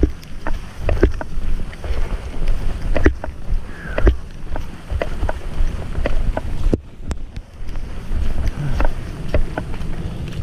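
Walking footsteps at about two a second, with the camera knocking and rubbing against the fanny pack it is hooked to, over a low rumble of handling noise.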